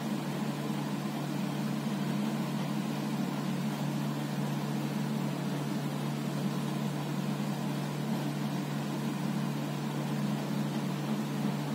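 A steady, unchanging low hum over an even hiss, like a running machine or appliance, with no breaks or changes.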